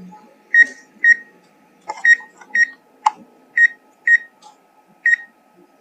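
Drone remote controller beeping: short high double beeps, a pair every second and a half, with a sharp click about three seconds in.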